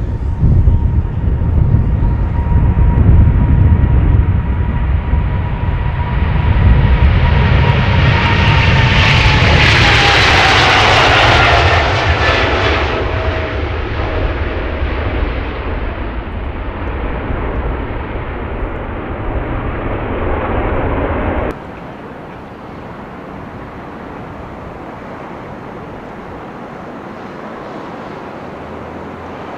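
Airbus A380 jet airliner passing close by: a loud engine rumble with a whine that swells to a peak about a third of the way in, then drops in pitch as the aircraft goes past and fades. About two-thirds through, the sound cuts off suddenly to a quieter, steady rumble.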